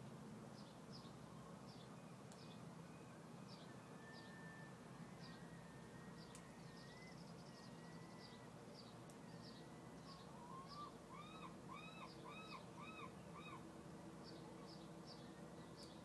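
Faint bird calls: a steady string of short, high chirps about twice a second, joined about two-thirds of the way in by a run of five rising-and-falling whistled notes, over a low steady hum.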